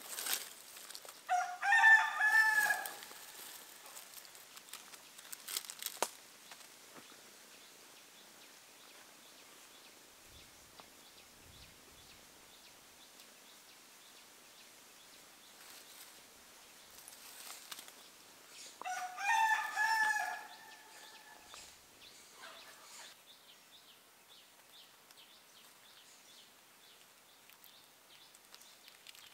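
Rooster crowing twice, each crow lasting about a second and a half, the second coming about 17 seconds after the first.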